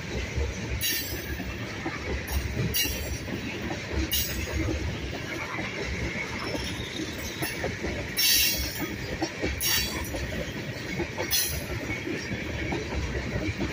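Freight train of tank cars rolling past close by: a steady rumble and clatter of steel wheels on rail, with about six short, high wheel screeches spread through it.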